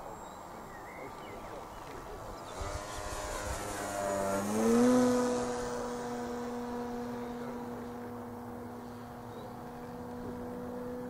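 Electric motor and propeller of a radio-controlled model glider in flight. The pitch falls, and a rush of air peaks about five seconds in; the motor then settles into a steady hum at one pitch.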